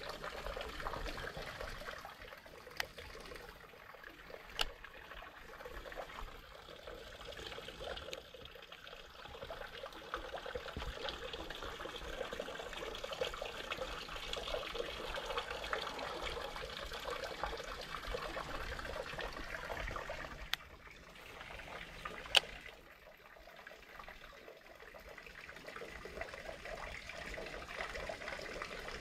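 Baitcasting reel being cranked steadily on a lure retrieve, a fine continuous whirring. A few sharp clicks come through, the loudest about two-thirds of the way in, followed by a few quieter seconds before the winding resumes.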